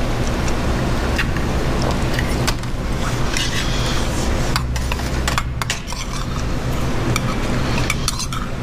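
A metal spoon clinking and scraping against a stainless steel bowl in scattered light clicks as food is scooped, over a steady low mechanical hum.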